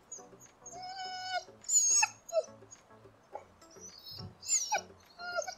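Young Labrador retriever whining in a series of high-pitched whimpers, the first a long steady one about a second in, while held in a sit-stay as a ball rolls away: the strained whine of a dog anxious to chase.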